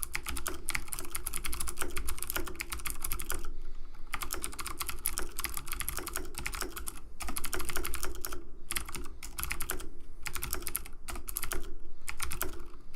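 Rapid typing on a computer keyboard: keys clicking in quick runs, broken by several short pauses.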